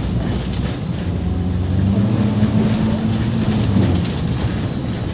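MAZ 203.065 city bus's diesel engine pulling under way, heard from inside the bus: its note rises about two seconds in as the bus accelerates and eases off near four seconds, with a thin high whine gliding up and down and light rattles.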